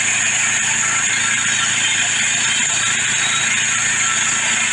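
Portable band sawmill running steadily, its gas engine at speed and the band blade sawing through a small test log.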